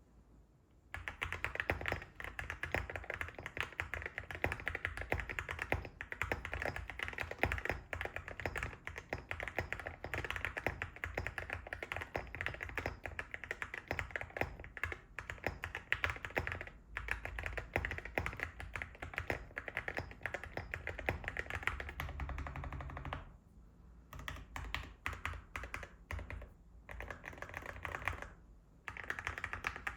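Fast continuous typing on an Akko MU01 wooden mechanical keyboard with Gateron Oil King switches and ceramic keycaps, a dense run of key clacks. The typing starts about a second in, goes on steadily for over twenty seconds, then turns sparser, with short pauses near the end.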